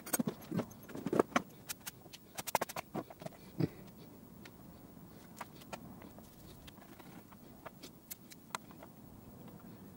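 Tools and small parts being handled and set down on a plywood workbench: a quick run of clicks and light knocks in the first few seconds, then only an occasional soft tap.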